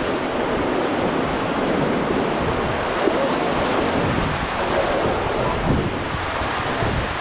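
Whitewater of a river rapid rushing and churning around an inflatable raft, with wind buffeting the microphone; a steady, dense rush of water noise.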